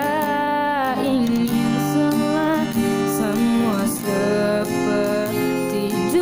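A voice singing a melody with long, wavering held notes over a strummed acoustic guitar.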